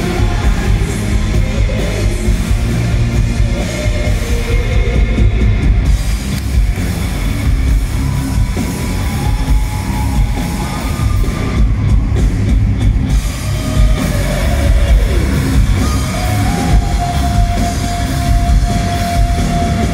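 Rock band playing live and loud, with drum kit, bass guitar and keyboards. One long note is held over the last few seconds.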